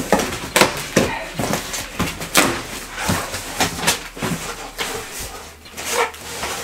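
Cardboard box being opened: an irregular run of scrapes, rustles and knocks as the flaps and a large cardboard lid are pulled back, with some echo from the room.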